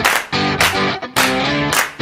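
Background music: a track with a strong, regular beat and sustained chords.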